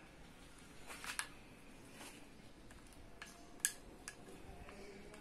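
Small plastic spoon scraping and clicking against a ceramic bowl while stirring a thin milky mixture: several faint clicks and scrapes, the sharpest about two-thirds of the way in.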